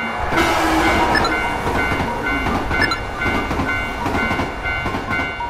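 Electric commuter train passing over a level crossing, its wheels rumbling and clattering on the rails. A railway crossing bell dings about three times a second throughout.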